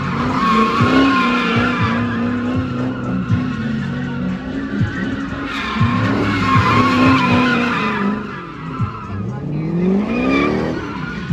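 Car spinning donuts: tires squealing on the asphalt in two long spells, with the engine held high in the revs. Near the end the engine eases off, then revs up again in a rising pitch.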